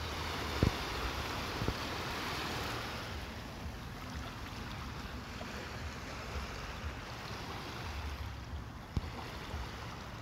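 Small waves washing onto a rocky, pebbly shore, with wind rumbling on the microphone. Three short knocks stand out, the sharpest under a second in.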